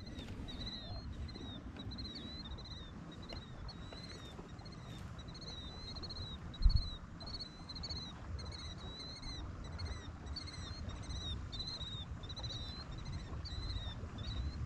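A bird calling over and over, short arched chirps about twice a second, over a steady low rumble. One low thump about halfway through.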